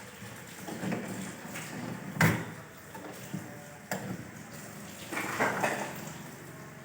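Handling noise during refrigerator repair work: a sharp knock about two seconds in, a smaller click near four seconds, and a short scraping rattle a little after five seconds.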